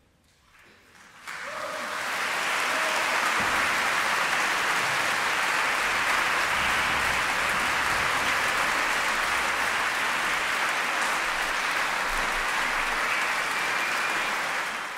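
Concert audience applauding after a short silence, the clapping swelling in about a second in and then holding steady.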